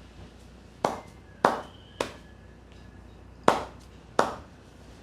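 Five sharp hand slaps of an Indian head massage, the hands striking the head percussively: three in quick succession, a pause of about a second and a half, then two more.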